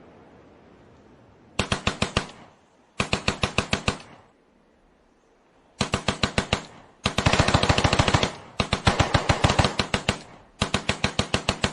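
Machine-gun fire in six short bursts of rapid shots, about nine a second, separated by brief pauses, after the tail of an explosion dies away at the start.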